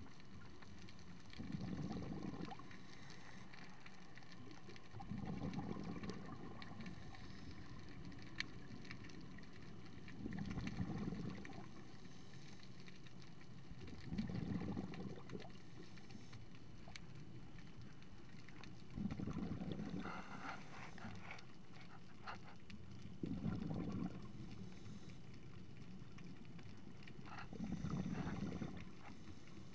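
Underwater breathing sound of a scuba diver: exhaled bubbles rumbling and gurgling in regular bursts about every four to five seconds, seven in all. Faint ticking and crackling between the bursts, with one sharper click about eight seconds in.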